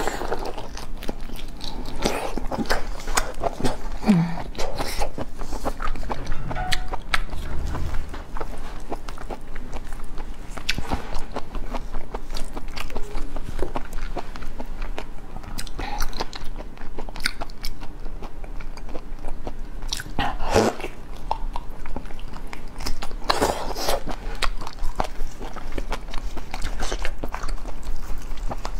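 Close-up eating sounds of a person biting and chewing raw lobster meat, with many small sharp clicks as the shell is handled and pulled apart, and a few louder crackles about two-thirds of the way through.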